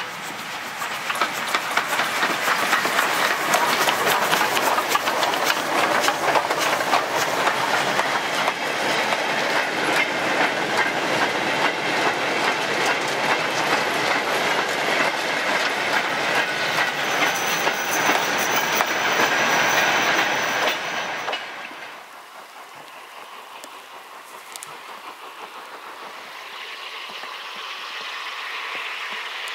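A goods train of wagons hauled by a steam locomotive passes close by, its wheels clattering rapidly over the rail joints. After about twenty seconds the sound drops suddenly to a much quieter, distant train sound that builds slightly near the end.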